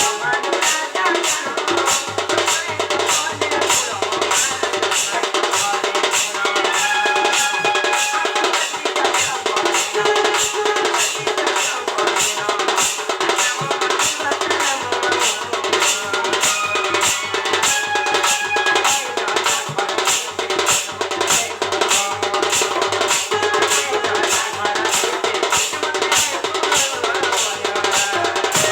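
Instrumental music with a steady drum beat of about two strokes a second under held melody notes.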